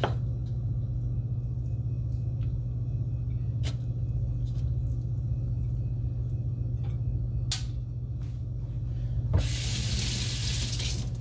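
A steady low hum with a few faint light clicks while crumbled cheese is sprinkled over the tacos; about nine seconds in, a kitchen tap is turned on and water runs with a steady hiss.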